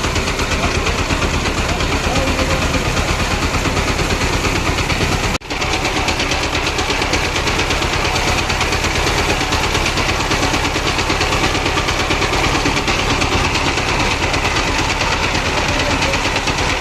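Engine of a passenger-laden tractor-trailer running steadily with a rapid, even beat as it drives through floodwater. The sound drops out very briefly about five seconds in.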